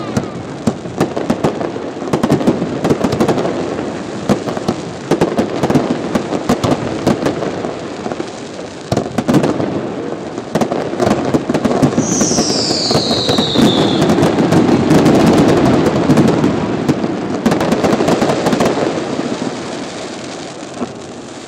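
Fireworks display going off without a break: a dense run of crackles and bangs, with a falling whistle about twelve seconds in.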